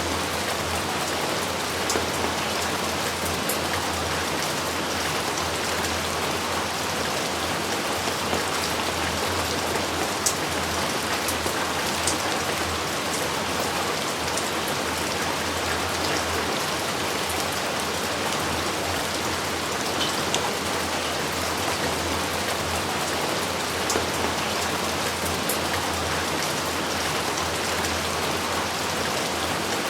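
Steady rain falling, an even hiss with scattered close drop ticks.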